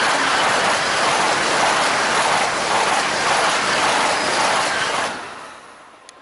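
DB ICE high-speed train of two coupled units passing close by at speed: a loud, steady rush of wheels on rail and air. About five seconds in the sound falls away quickly as the last car goes by.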